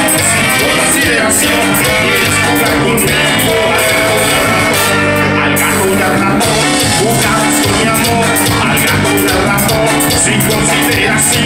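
Live banda music, loud and continuous: a brass section of trumpets and saxophones over electric bass, guitar and a drum kit, heard from the audience.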